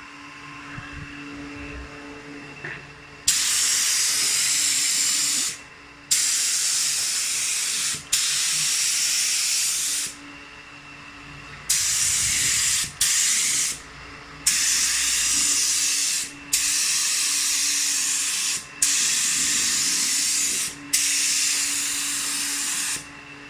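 Air spray gun spraying primer in nine bursts of hiss, each about one to two seconds long, the trigger pulled and released with short pauses between, over a faint steady hum.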